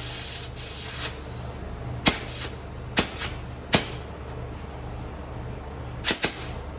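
Compressed air hissing into a motorcycle tire through an inflator, cutting off about half a second in after a couple of short bursts, then several sharp pops, two of them close together near the end, as the tire bead snaps onto the rim's bead seat.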